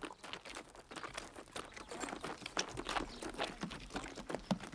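Hooves and footsteps on a stony dirt track: an irregular patter of clicks and crunches from saddled animals and people walking.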